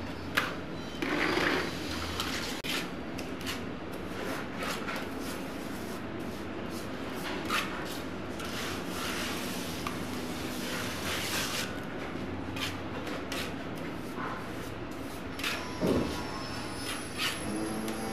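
Plastering trowel and hand float scraping and smearing wet cement mortar onto a wall, with mortar scooped from the floor, in uneven strokes and light taps, and a heavier knock near the end.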